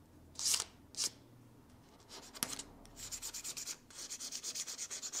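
A hand wiping and rubbing across the cast-iron guideways of a lathe saddle, clearing off grime and brass swarf. A couple of short swipes come first, then a quick run of back-and-forth strokes, several a second, from about three seconds in.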